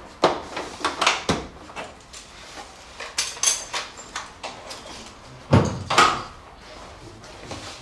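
Irregular knocks and clicks of objects being handled, with two louder knocks about five and a half and six seconds in.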